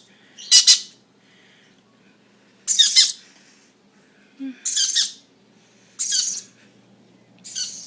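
Young Iris lorikeet giving five short, harsh, raspy screeches, about one every second and a half.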